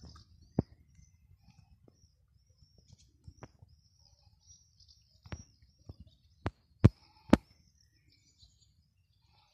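Small birds twittering in quick high chirps, with a handful of sharp clicks, the loudest three close together about six and a half to seven and a half seconds in.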